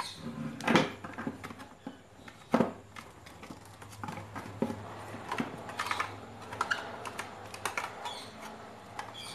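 Plastic housing of an electric iron and hand tools handled on a wooden bench as the iron is taken apart: irregular clicks and light knocks, with two louder knocks, about a second in and between two and three seconds in.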